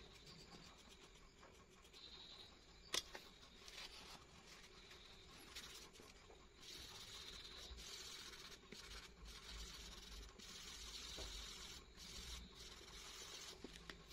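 Faint scratching of a coloured pencil shading on paper, which grows louder and denser about halfway through. A single sharp click about three seconds in.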